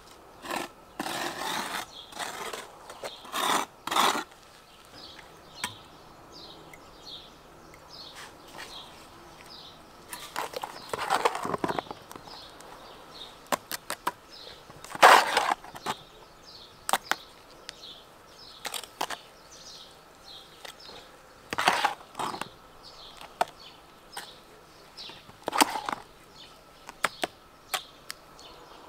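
Irregular scrapes and sharp knocks, some in short runs and the loudest about halfway through, with birds chirping throughout.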